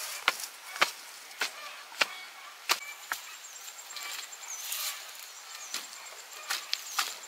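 Chopping with a blade on wood: a series of sharp single strokes, about one every half second to second, some louder than others.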